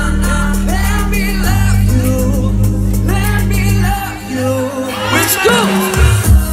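Live pop music: a four-piece boy band singing into microphones over a backing track with a heavy bass line. The bass drops out about four seconds in, and a thumping beat comes back in near the end.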